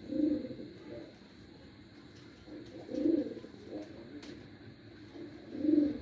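Domestic pigeons cooing: three low coos, about two and a half seconds apart.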